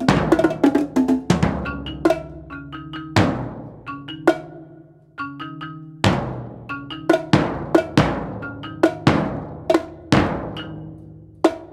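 Live percussion duo: cymbal crashes and drum strokes every second or so, each ringing out, with short pitched marimba notes struck between them.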